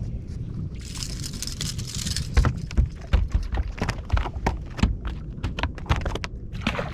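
A run of sharp, irregular knocks and taps in a small fishing boat, starting about two and a half seconds in, after a brief hiss, with wind rumbling on the microphone throughout.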